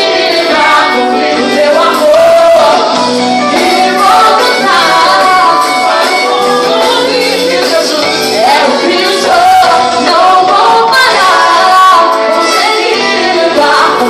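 Live worship music: a woman singing a slow, sustained melody with a backing band.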